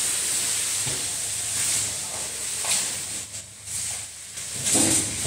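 A person in clothing being dragged by the legs across a wooden parquet floor: a scraping, rustling noise that swells and eases with each pull.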